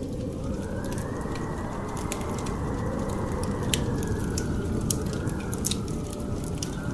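Added ambience of howling wind that swells and sinks, with the crackling and popping of a fireplace.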